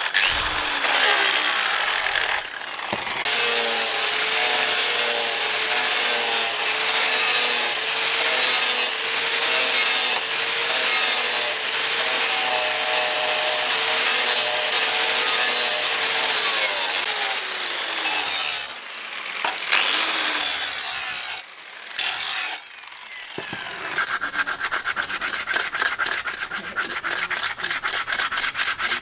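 Angle grinder running with a steady whine while its disc grinds the steel cleaver blade, with a few short bursts of grinding after it stops. Near the end, a wooden knife handle is sanded by hand with rapid, even back-and-forth strokes.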